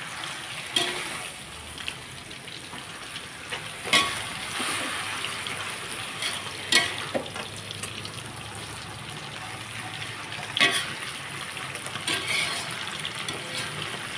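Water spinach sizzling in a hot metal wok while a metal spatula stirs and tosses it, with a few sharp knocks of the spatula against the wok.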